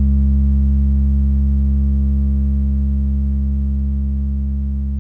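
Make Noise Strega synthesizer holding a steady low drone, a deep hum with a long stack of overtones, slowly fading.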